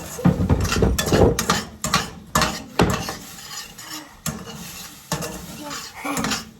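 A utensil scraping and clattering against a frying pan in irregular strokes as scrambled eggs are stirred.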